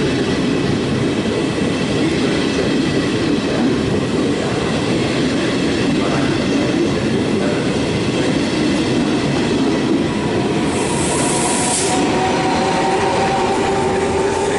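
Passenger train rolling slowly through a station over the points, with a continuous loud rumble of wheels on rail. A short hiss of air comes a little after ten seconds, and a steady whining tone sets in near the end.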